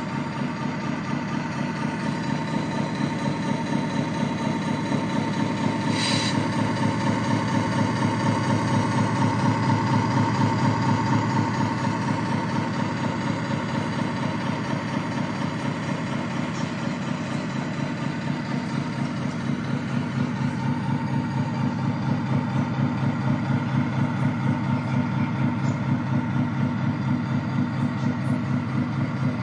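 Sound module of a radio-controlled Scania R730 V8 truck model playing a V8 diesel idle through its speaker: a steady, pulsing engine beat, with a brief sharp high noise about six seconds in.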